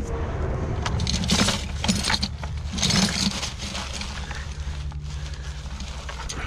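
Steel leg-hold traps and chain clinking and rattling in a plastic bucket as gloved hands rummage through it, busiest in the first half and thinning out near the end, over a steady low rumble.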